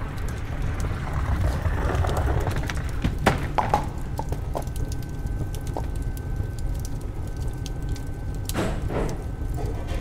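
Old-bakery kitchen ambience mix of boiling water and oven fire: a steady low rumble with scattered crackles and a faint steady high tone, with a few knocks and clatters about three to four seconds in and again near the end.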